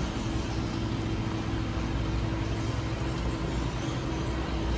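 Steady background machine hum and hiss with a constant low tone.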